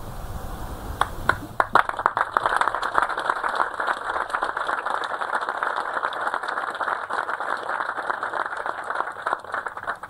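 Audience applauding: a few scattered claps about a second in, building into steady applause that stops abruptly near the end.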